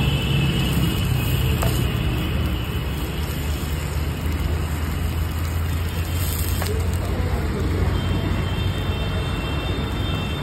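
Steady street traffic noise with a continuous low engine drone underneath. A faint high steady tone sounds at the start, fades, and comes back about two seconds before the end.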